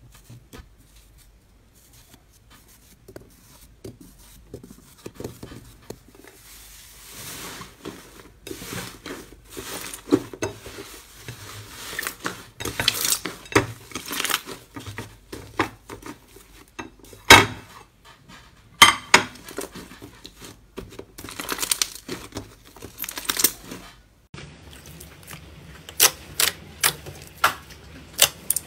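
Slime squeezed and kneaded by hand in a glass bowl, giving a dense run of wet pops and crackles as trapped air bursts, with a loud snap about halfway. After a cut near the end, clear slime pressed flat with the hands gives sharper, evenly spaced pops over a low hum.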